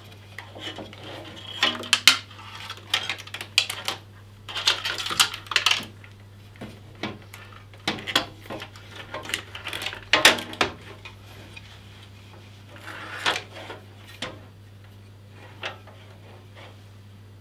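Corsair H150i PRO radiator with its fans being fitted into a metal PC case: irregular clattering knocks, clicks and scrapes of metal and plastic, over a steady low hum.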